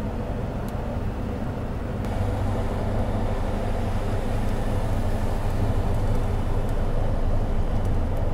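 Engine and road noise of a moving AC sleeper bus, heard from inside its cab: a steady low rumble that grows louder about two seconds in.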